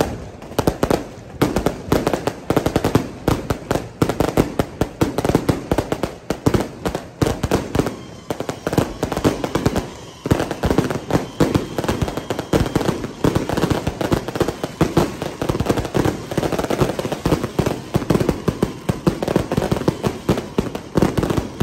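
Strings of firecrackers going off in dense, irregular rapid-fire cracks, with brief lulls about eight and ten seconds in.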